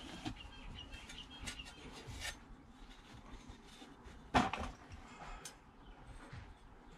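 Faint clicks and knocks of handling, with one louder knock about four and a half seconds in.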